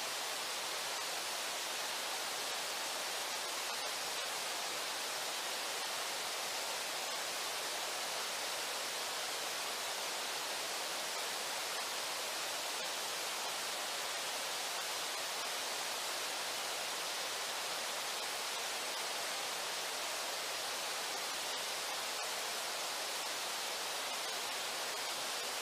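Steady, even rush of the Brooks River's flowing water.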